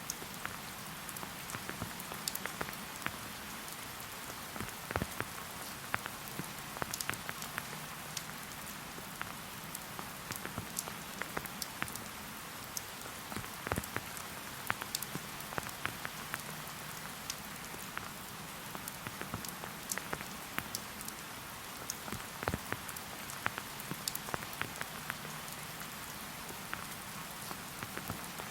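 Steady rain falling in a forest: a constant soft hiss, with many close drops ticking at irregular moments.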